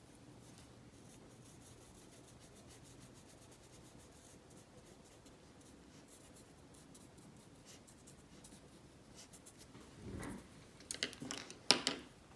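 Watercolour brush dabbing faintly on paper. In the last two seconds come a few sharp clicks and taps.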